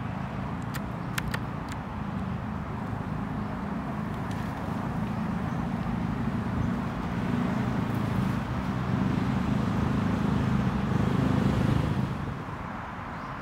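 An engine running, a low steady hum that grows louder and then drops away about twelve seconds in, with a few sharp clicks near the start.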